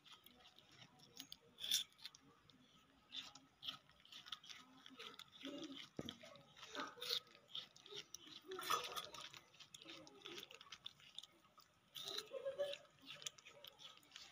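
Young macaques eating melon: soft, irregular chewing and smacking with small clicks and crunches.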